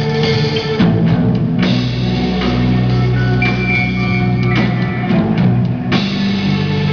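Rock band playing live and amplified: electric guitars, keyboard and drum kit, with no singing.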